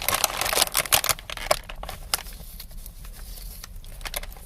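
A chip bag crinkling for about the first second, then scattered sharp crunches as a wavy potato chip is bitten and chewed.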